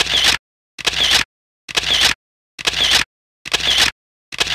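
Camera shutter sound effect repeated six times, a little under once a second, with dead silence between the clicks.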